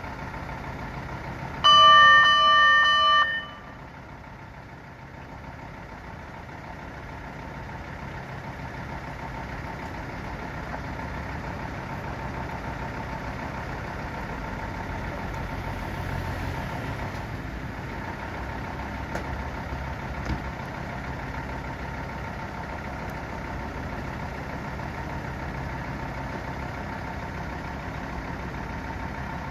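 Fire engine's horn tested with one steady blast of about a second and a half, the loudest sound here. Its engine then idles steadily.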